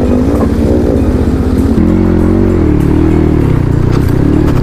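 Motorcycle engine running, its pitch wavering up and down as the rider works the throttle through a shallow river crossing.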